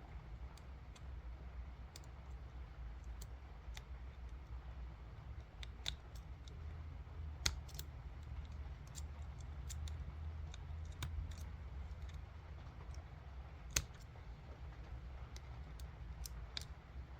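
Irregular small metallic clicks and ticks of a lock pick and tension tool working the pins of a cheap motorcycle lock, with a couple of sharper clicks. A low steady hum runs underneath.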